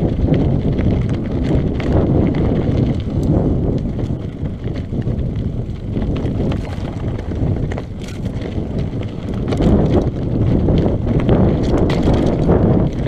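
Mountain bike rolling fast down rocky, gravelly singletrack: a constant rumble of wind on the action camera's microphone and tyres over dirt and stones, with scattered clicks, knocks and rattles from the bike over the rocks.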